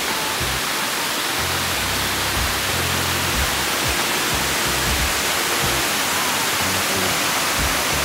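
Water pouring over a small weir and rushing down a channel: a steady, even rush of white water. Faint background music runs underneath.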